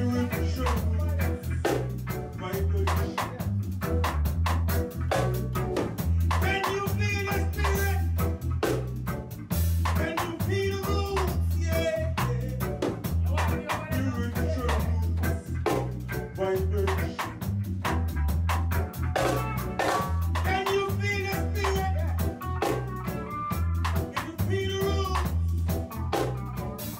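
Band music with a heavy, pulsing bass line and a drum kit beat, with a singing voice coming in for stretches.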